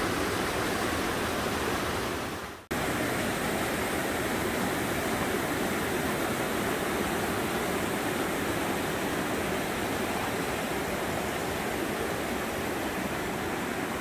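Mountain stream rushing over rocks and small cascades: a steady, even rush of water. The sound fades briefly and cuts back in sharply about two and a half seconds in.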